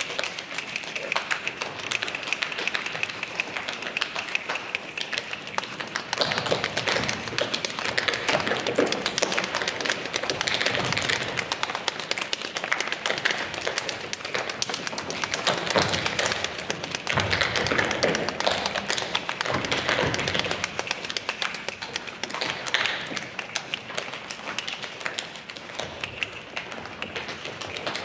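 Dense, continuous tapping with occasional thumps.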